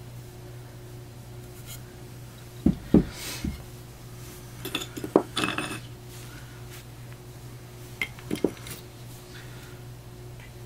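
Fossil-bearing rocks knocking and clinking together as they are handled: a few knocks about three seconds in, a ringing cluster around five seconds, and two more knocks near eight seconds, over a steady low hum.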